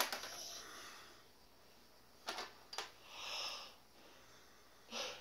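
Faint, light clicks and knocks of plastic toy workbench parts being handled, a few separate ones, with a soft breathy hiss about three seconds in.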